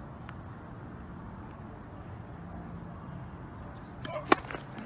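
Steady outdoor background noise, then about four seconds in a single sharp, loud pop of a tennis racquet striking the ball on a serve.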